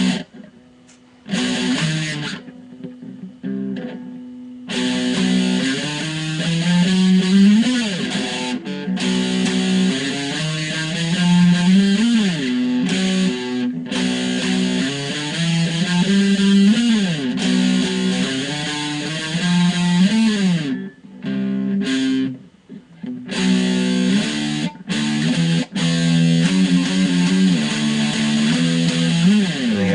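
Electric guitar with a distorted, buzzing tone playing a riff of chords, with several pitch bends that rise and fall back. It stops briefly a few times.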